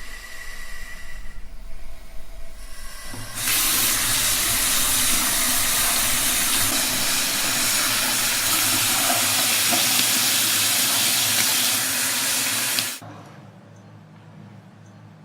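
Water tap running into a sink: a loud, steady rush starting about three and a half seconds in and shut off abruptly near the end, after about nine seconds.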